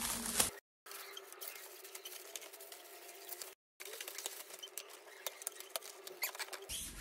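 Shiny red metallic gift wrap being torn and pulled off a gift: faint crinkling and crackling made of many small clicks, broken twice by a brief drop-out to dead silence.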